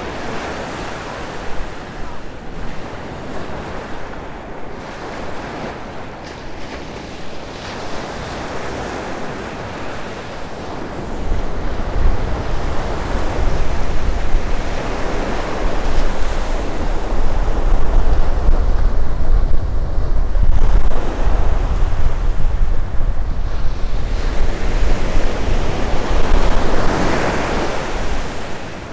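Small ocean waves breaking and washing up over wet sand in a steady hiss of surf, with surges of wash near the start, in the middle and near the end. About a third of the way in, wind starts buffeting the microphone with a heavy low rumble that becomes the loudest sound.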